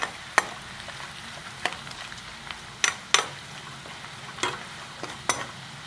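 Onion and spice masala frying in hot oil in a metal kadai, a steady sizzle, while a spatula stirs it and knocks against the pan about eight times at uneven intervals.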